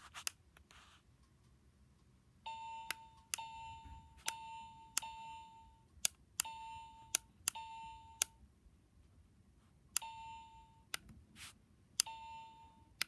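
Electronic alarm clock beeping as its buttons are pressed: a click followed by a short steady beep, about ten times in a row, with a pause of a second or two before the last few.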